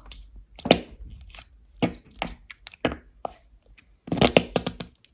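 Noise putty being squished and pressed in its plastic tub to make fart noises, giving irregular short pops and crackles, with a quick cluster of them about four seconds in.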